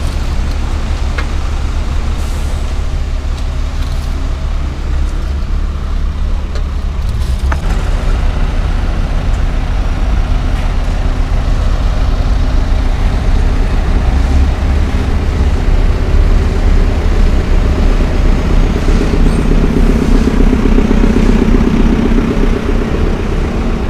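Heavy diesel road-works machinery running: a concrete mixer truck and a wheel loader. The engine sound gets louder in the second half, with the loader close by near the end.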